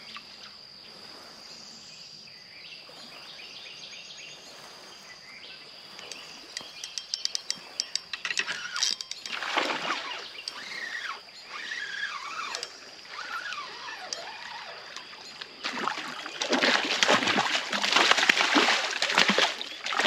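Water splashing in bursts: one around the middle, then a longer, louder stretch of splashing from about four seconds before the end, amid scattered clicks. A steady high-pitched whine runs underneath throughout.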